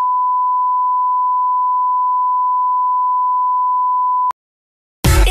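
Steady test tone, a single unchanging beep of the kind played with colour bars, cutting off suddenly about four seconds in. After a brief silence, loud electronic dance music starts right at the end.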